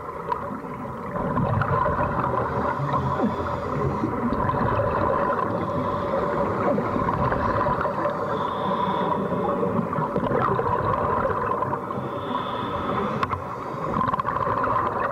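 Steady rushing, bubbling noise of air streaming into water from free-flowing air hoses, under a faint constant hum.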